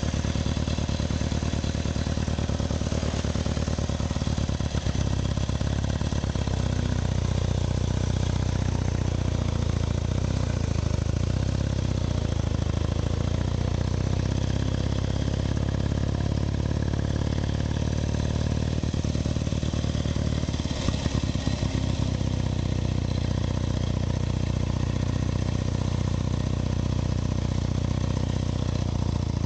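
1920 Douglas motorcycle's flat-twin engine running steadily, with closely spaced firing pulses. Its low note thickens about six seconds in, and it stutters briefly about two-thirds of the way through.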